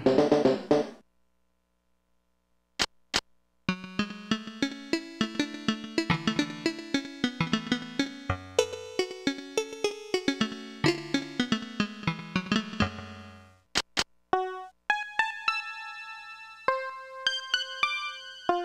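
Casio SA-10 ToneBank mini keyboard being played: a drum pattern cuts off about a second in, then after a brief pause and two short clicks a melody with low bass notes runs over regular ticks. After about 15 seconds it changes to a different voice playing longer, higher single notes.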